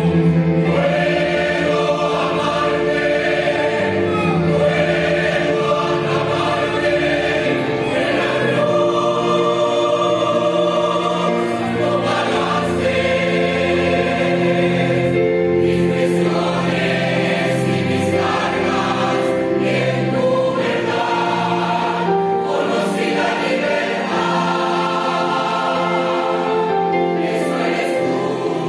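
Mixed church choir of women's and men's voices singing together in sustained chords.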